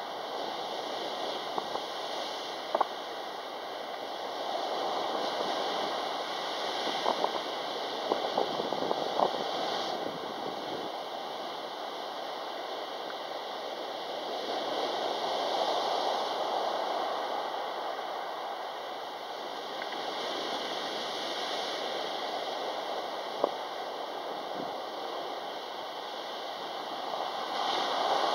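Sea surf breaking on a pebble beach: a steady wash of noise that swells and fades as each wave breaks and runs up the shore, with a few sharp clicks now and then.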